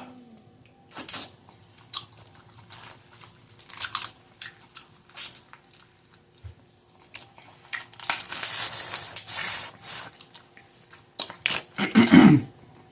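Close-up eating sounds from a seafood boil: crawfish and shrimp shells cracked and peeled, with crinkling, tearing and chewing. Scattered sharp cracks give way to a longer stretch of dense crackling in the middle, and it gets louder near the end.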